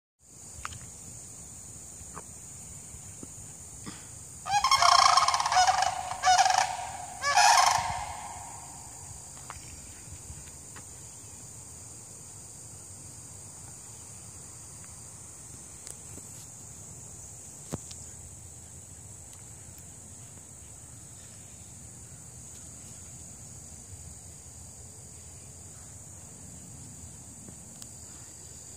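Sandhill cranes calling: loud, rolling, rattling calls in three bursts between about four and eight seconds in. A steady high insect trill runs underneath throughout.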